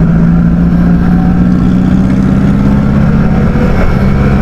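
Yamaha R15 motorcycle's single-cylinder four-stroke engine running under way at a steady pitch, the note dipping briefly near the end.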